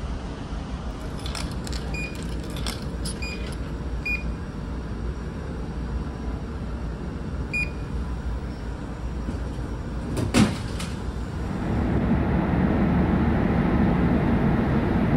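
Steady low hum aboard a ferry, with a few short electronic beeps as a vending machine's number keypad is pressed, and a single sharp thump about ten seconds in. From about twelve seconds in, a louder rushing of wind and sea on the open deck takes over.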